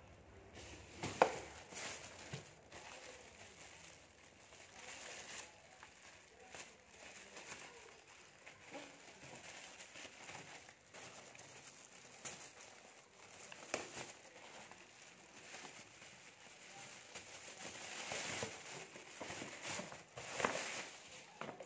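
Plastic shopping bag crinkling and rustling as new rubber slippers are handled and unpacked, with a few sharp taps, the loudest about a second in.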